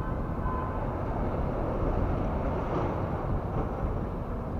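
Traffic crossing a large road bridge, a steady low rumble that swells about halfway through as a vehicle passes.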